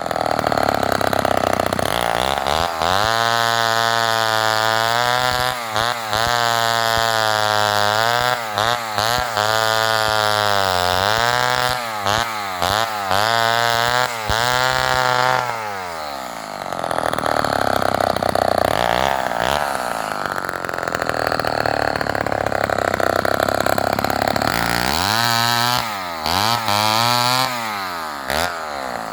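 Homelite XL-12 two-stroke chainsaw with a 20-inch bow bar running at high revs. Its pitch dips and recovers again and again. The engine falls away about halfway through, then revs up twice near the end.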